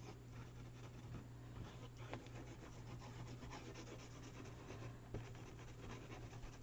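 Faint rubbing and light scratching as paper and glue are handled on a work surface, over a steady low hum.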